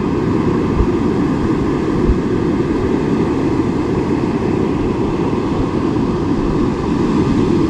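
Steady low rumble of wind buffeting the microphone on an open beach, with no letup.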